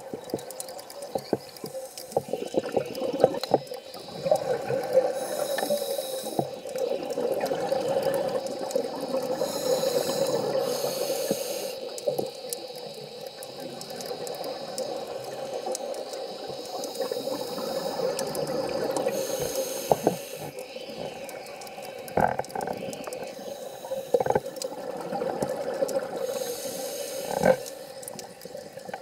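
A scuba diver breathing underwater through a regulator: a short hiss of inhaled air every several seconds, between longer stretches of gurgling exhaled bubbles, with scattered small clicks throughout.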